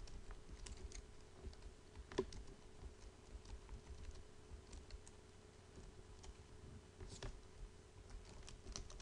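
Faint typing on a computer keyboard: irregular key clicks at an uneven pace, with a sharper click about two seconds in.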